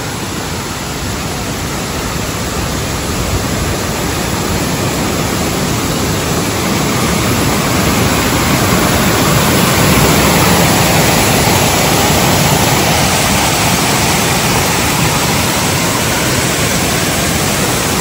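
A tall waterfall in heavy flow, its water rushing over the brink in a steady roar of noise. It grows louder over the first half as the listening point nears the edge, then holds steady.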